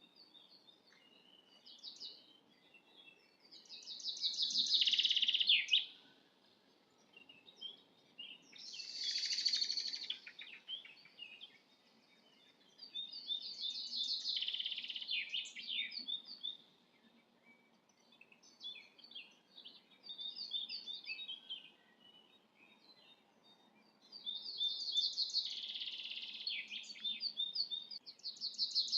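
Small songbirds singing: phrases of rapid high trilling notes, each about two seconds long, come five times, with softer scattered chirps in between.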